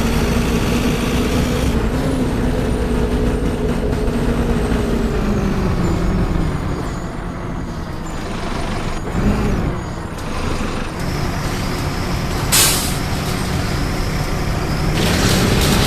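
Mercedes-Benz OF-1418 bus's six-cylinder diesel engine running, dropping in pitch as it slows about five seconds in. A short, sharp air brake hiss comes about twelve seconds in, and near the end the engine revs up again.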